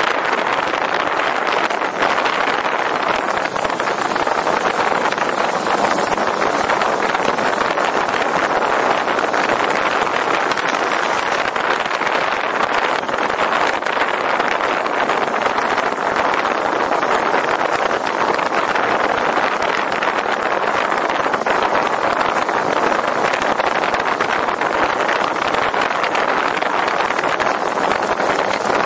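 Steady rush of wind and road noise from a motorcycle riding along at a constant speed, the motor mixed into an even, unbroken roar.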